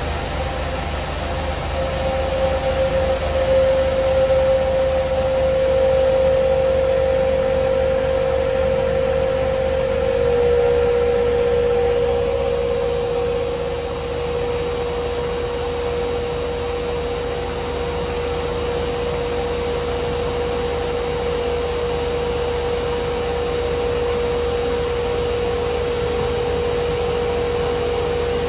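Protima rug centrifuge spinning a washed rug to wring it out: a loud, steady machine hum with a constant whine, while the extracted water rushes out of its drain hose.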